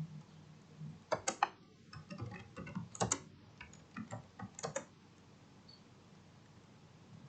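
Computer keyboard typing: an irregular run of key clicks for the first five seconds or so, then it stops.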